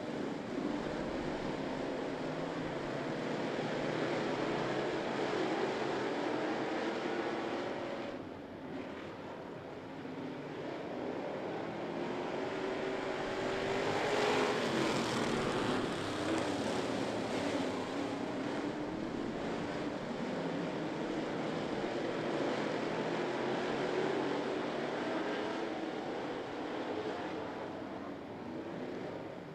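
Dirt-track classic race cars' engines running at speed as a pack laps the oval, the drone rising and falling as the cars go round. It dips briefly about a third of the way in and is loudest about halfway through, as cars sweep close past.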